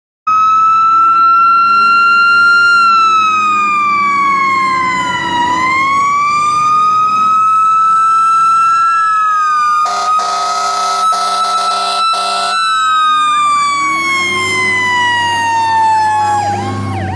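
Fire engine siren wailing, its pitch sliding slowly down and back up. About ten seconds in, the air horn sounds in a few blasts for about two and a half seconds. Near the end the truck's diesel engine rumble grows as it passes.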